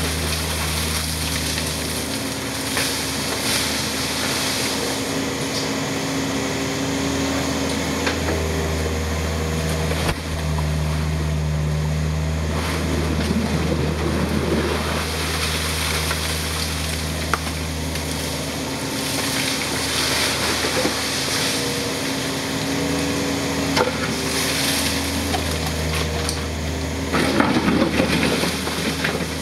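Yanmar ViO55 mini excavator's diesel engine running steadily, its note shifting as the hydraulics work the boom and ditching bucket. The bucket scrapes through wet sand and stones about halfway through and again, more loudly, near the end.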